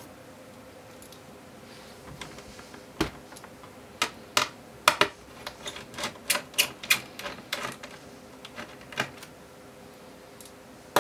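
Small metal screws and a small Phillips screwdriver clicking and tapping against a laptop's metal keyboard plate as the screws are taken out: a single sharp click about three seconds in, then a quick scattering of light clicks for several seconds.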